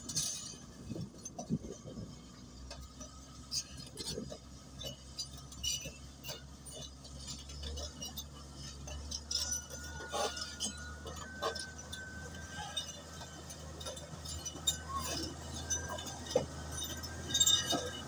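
Komatsu D155A crawler bulldozer working rocky spoil: its diesel engine runs with a low, steady drone under a scatter of sharp clinks and clatter from the steel tracks and the tumbling rock.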